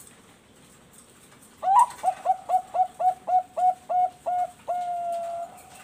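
Zebra dove (Bangkok perkutut) cooing its song. About a second and a half in, an opening note leads into a quick run of about nine short coos, some four a second, ending in one long held coo.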